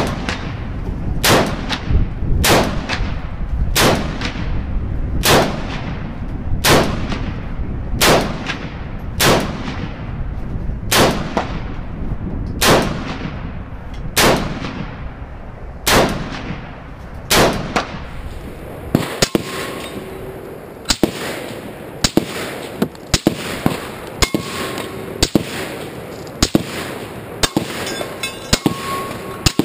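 PTR 91 .308 semi-automatic rifle firing steady aimed shots, about a dozen at roughly one every 1.3 seconds, each crack followed by a long echoing tail. About two-thirds of the way in, the sound turns to the rifle heard at the targets: shorter, sharper cracks, some in quick pairs.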